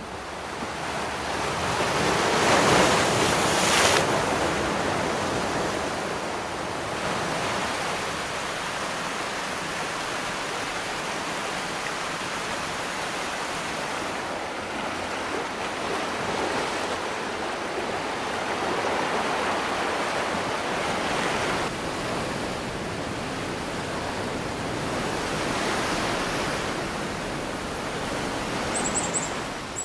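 Ocean surf: waves breaking and washing in as a continuous rush. The loudest wave comes about two to four seconds in, followed by gentler swells every few seconds.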